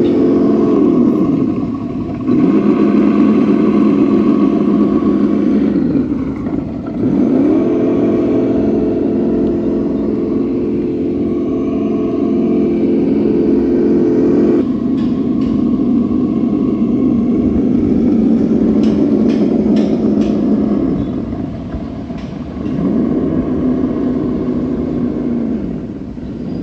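Synthetic engine sound from the ESS Dual onboard sound module of an RC Benchy model tugboat, played through its small speaker. The steady engine note drops toward idle about two seconds in and climbs back about seven seconds in as the throttle changes, then falls and rises again near the end. There are a few sharp clicks about twenty seconds in.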